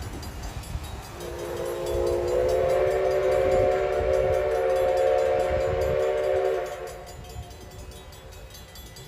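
Huckleberry Railroad 152's steam locomotive whistle sounding one long chord of several tones, starting about a second in and cutting off near seven seconds, over the low rumble of the passing train.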